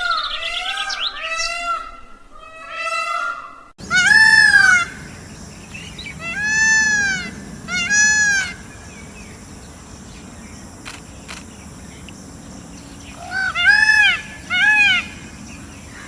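Peacocks (Indian peafowl) calling with loud, arched, wailing cries: a quick overlapping run of calls at first, then single calls at intervals of a second or two, a lull of several seconds, and two more calls near the end.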